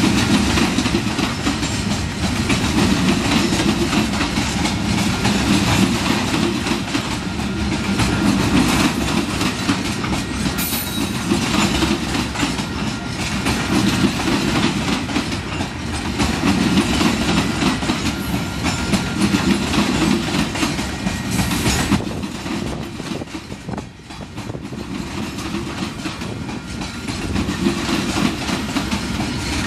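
Loaded coal hopper cars of a freight train rolling past, a steady rumble of steel wheels on the rails that swells and eases every few seconds.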